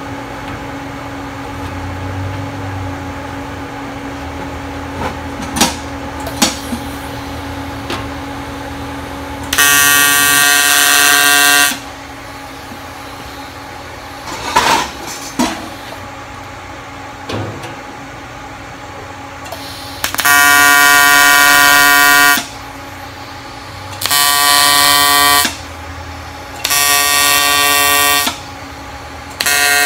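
AC TIG welding arc on aluminum plate buzzing in five separate tack welds of about two to three seconds each, the first about ten seconds in and the last starting near the end. Between tacks there is a steady hum and a few sharp clicks of handling.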